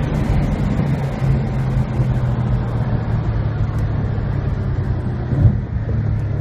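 An Audi's engine running steadily under way, heard from inside the cabin over road and tyre noise, with a short bump about five and a half seconds in.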